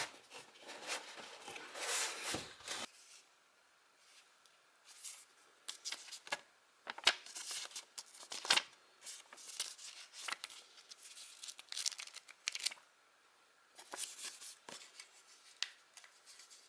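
Product packaging being handled and opened by hand: irregular rustling and tearing with sharp clicks, broken by short quiet pauses.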